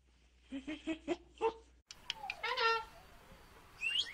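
Several short squeaky calls from a young Barbary macaque, then, after an abrupt cut, a blue-and-yellow macaw calling: one loud, drawn-out call, with a rising whistle near the end.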